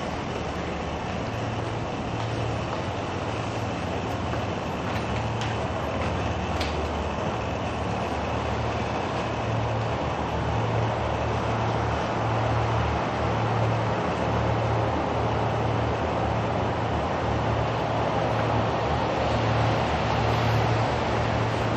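Steady road traffic noise: a continuous low rumble with a hiss of passing tyres, a little louder in the second half, with a few faint clicks.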